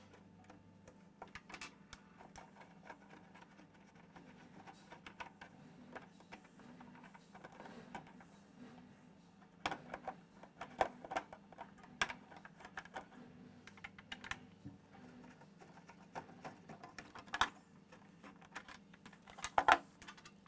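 Scattered light clicks and small knocks of a 4mm Allen key working the screws out of a cylinder mower's plastic side guard, with the guard being handled. The clicks come thicker from about halfway, and the loudest knocks come near the end.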